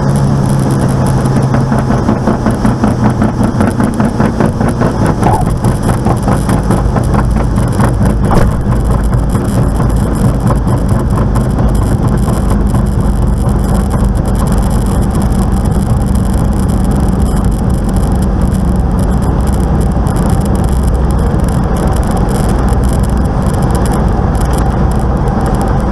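Light aircraft's piston engine heard from inside the cockpit, running at low power with a fast, rhythmic pulsing beat. This is the engine noise that appeared after the spider was replaced.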